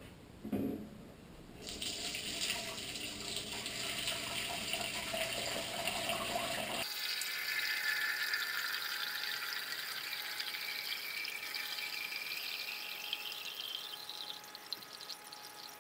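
Fermented grain wash poured from a glass carboy through a screen into a stainless steel pot: a short thump as it starts, then a steady splashing pour whose pitch rises as the pot fills, tapering off near the end.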